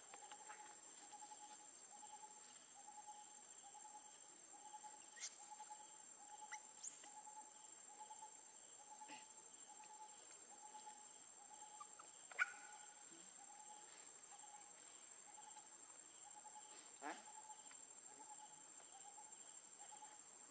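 Faint insect-like chirping, a soft pulse repeating a little under twice a second over a steady high whine. A few sharp clicks break through, the loudest about twelve seconds in.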